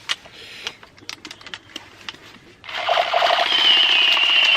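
A few plastic clicks from handling a battery-powered toy assault rifle, then, just past halfway, its trigger-activated firing effect: a loud, rapid electronic machine-gun burst from its small speaker, with a high whine running through it.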